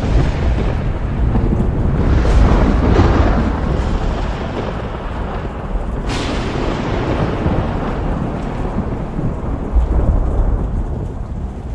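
Thunderstorm: steady rain with thunder rumbling throughout, and sudden thunderclaps about two seconds and about six seconds in that roll away.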